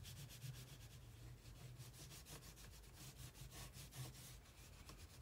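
Oil pastel scribbling on watercolour paper, faint rapid back-and-forth strokes as it fills in a shape without blending.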